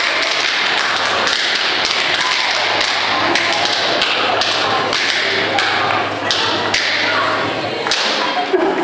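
A dense, even patter of many light taps and thuds from a group of people, starting suddenly just before and running on without a break.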